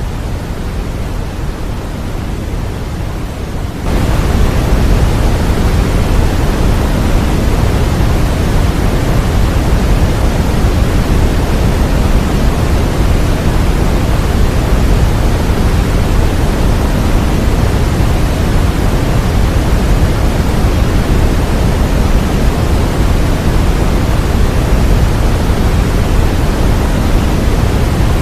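Continuous white noise for infant sleep, an even rushing hiss weighted toward the low end, stepping up in level about four seconds in and then holding steady.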